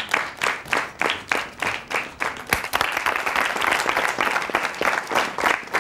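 Audience applauding, many hands clapping; the clapping thickens into a denser patter about halfway through.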